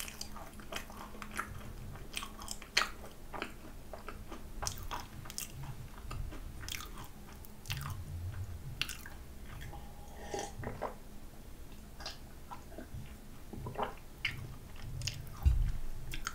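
Close-miked chewing of a macaron: soft crunching with many wet mouth clicks and smacks. Partway through there is a drink of soy milk, with gulping sounds.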